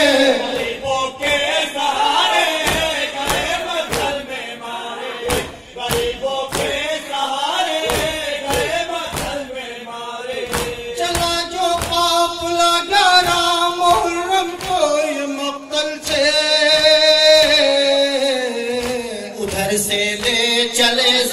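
Male voices chanting a noha, a Shia mourning lament, in slow unison, amplified through microphones. Through the first half it is punctuated by regular thuds of hands beating chests (matam), roughly every half second to second.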